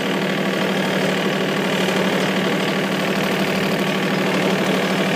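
Small utility vehicle's engine running with a steady, even hum as it drives slowly across grass.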